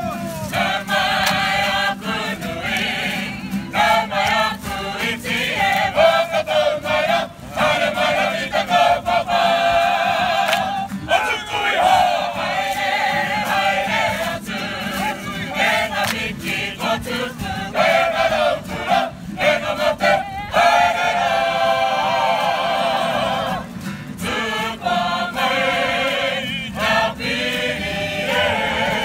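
Māori kapa haka group singing in chorus, men's and women's voices together in a steady unison song, phrase after phrase with short breaks between.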